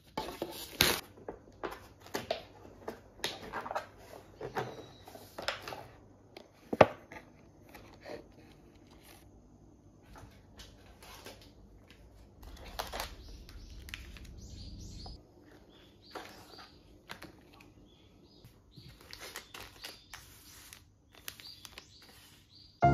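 Hands rustling and crinkling the plastic packaging of an instant pasta cup and its foil sachets, with irregular light clicks and taps on a wooden table; one sharper knock about seven seconds in.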